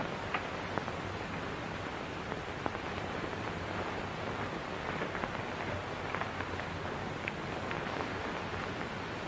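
Steady hiss with scattered faint clicks and crackles, the surface noise of an old 1930s optical film soundtrack.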